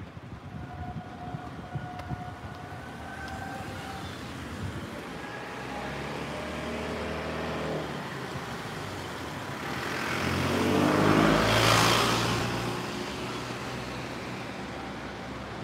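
Road traffic passing. A car goes by close, its sound building to a peak about twelve seconds in and then fading, its engine note falling as it passes. Another vehicle passes more faintly a few seconds earlier.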